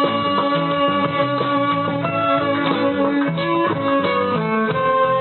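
A band playing an instrumental passage: guitar with long held melody notes over a repeating bass line.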